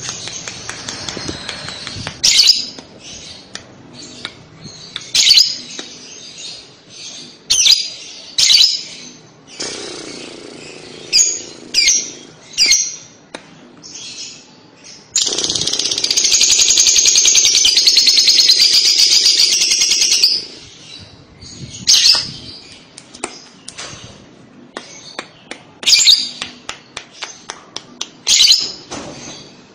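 Fischer's lovebird chirping sharply at intervals. About halfway through it breaks into a rapid, high trill lasting about five seconds: the long 'ngekek' chatter that lovebird keepers prize.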